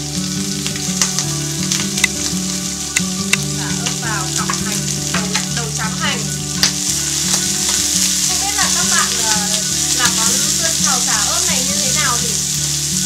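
Eel and vegetables stir-frying in hot oil in a frying pan, a steady sizzle with light clicks of chopsticks against the pan now and then. A rising-and-falling chirping sound joins over it from about four seconds in.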